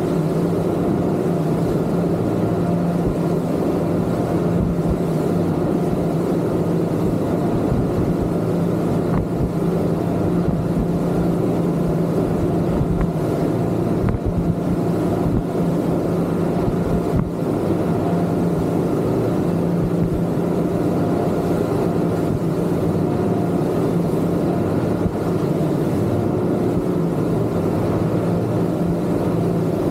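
Twin Yamaha 250 outboard motors on a Kingfisher 3025 GFX running at a steady cruising speed, a constant-pitch engine drone that holds level throughout.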